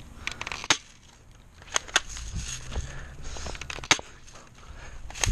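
Airsoft guns firing single shots: about five sharp snaps at irregular intervals, with softer rustling between them.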